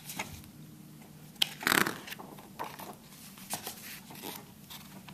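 Paper pages of a picture book being handled and turned: a tap about one and a half seconds in, a short papery swish just after, then a few light taps and rustles.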